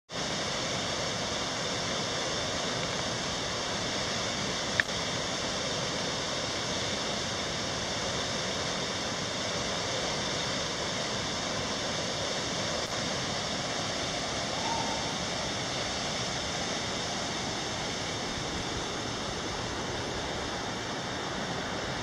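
Small waterfall cascading into a rock pool, a steady rushing of water. A single sharp click about five seconds in.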